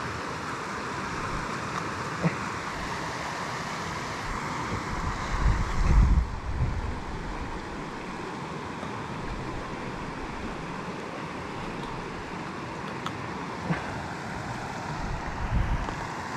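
Steady rush of creek rapids. A couple of low rumbles come in about five seconds in and again near the end.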